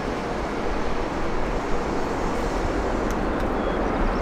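Jet airliner engines running, a steady rushing noise that grows a little louder about a second in.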